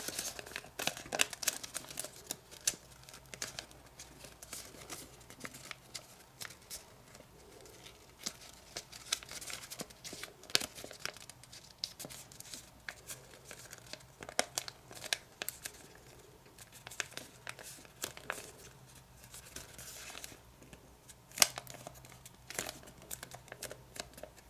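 Kami origami paper crinkling and rustling under the fingers as small flaps are reverse-folded and creased, in irregular little crackles and clicks. One sharper crackle comes near the end.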